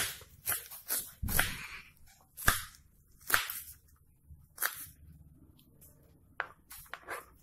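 Kitchen knife chopping a red onion on a plastic cutting board: about ten irregular sharp knocks of the blade on the board, sparser in the second half.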